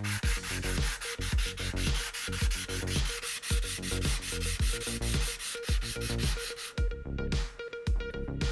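Steel meat grinder plate rubbed by hand on sandpaper laid flat: a gritty scraping as its cutting face is ground flat and sharp. The rubbing stops near the end, leaving background music.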